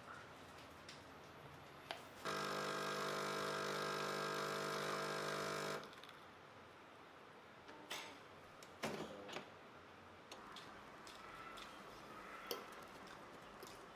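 Jura Impressa A9 automatic coffee machine running with a loud, steady whirring hum that starts suddenly and cuts off after about three and a half seconds, followed by a few light taps and clicks.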